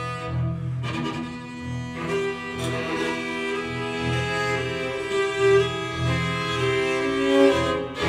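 String ensemble of violins, violas, cellos and double bass playing sustained, overlapping held chords, with a low part pulsing repeatedly beneath.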